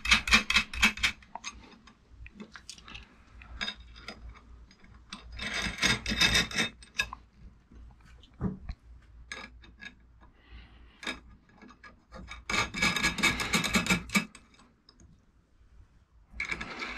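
Nuts and bolts being turned by hand on the threaded studs of rubber anti-vibration mounts, fastening aluminium brackets. The metal parts click and scrape in several short bursts of rapid clicking, with quieter handling between.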